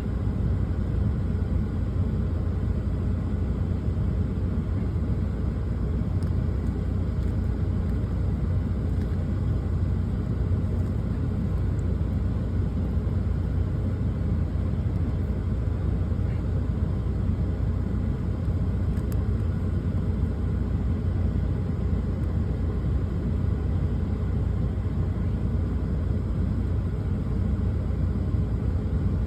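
Steady low rumble of a truck's engine running, heard inside the cab, with no change in level.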